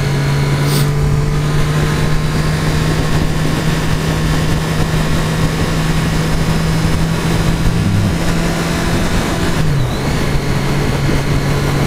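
2013 Triumph Daytona 675R's inline three-cylinder engine running at a steady pitch under wind and road noise, heard from a helmet-mounted microphone. The engine pitch dips briefly near the end.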